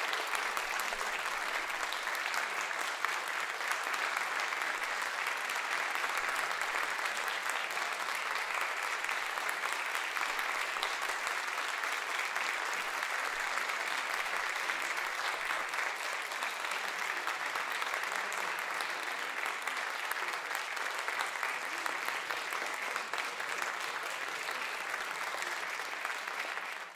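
Audience applauding steadily, a dense even clapping, which cuts off suddenly at the very end.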